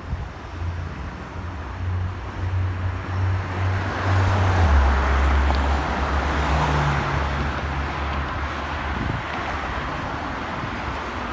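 Fire engine's engine running with road and tyre noise on a city street, growing louder about four seconds in and then holding steady.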